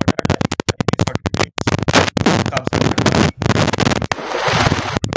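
Loud, dense crackling: rapid irregular cracks, with a stretch of hiss about four seconds in.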